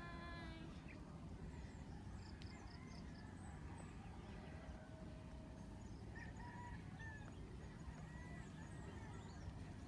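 Wind rumbling on the microphone outdoors, with a short pitched animal call right at the start and scattered bird chirps later on.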